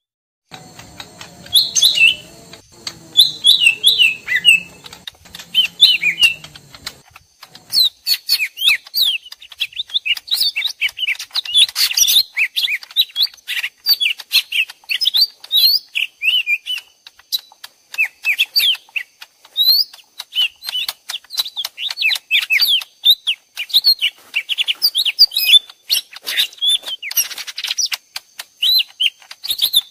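Lesser green leafbirds (cucak ijo mini) calling back and forth in a fast, dense stream of sharp chirps and short whistled notes, two birds answering each other as if fighting: an agitated territorial exchange used as a trapping lure. A faint steady hum and hiss underlie the first several seconds, then drop away.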